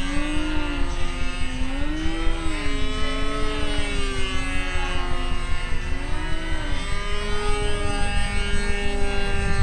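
The two-stroke Fox .45 glow engine of a Combat Airmadillo RC model airplane running in flight overhead. Its note rises and falls in pitch again and again as the plane turns and passes, over a low rumble.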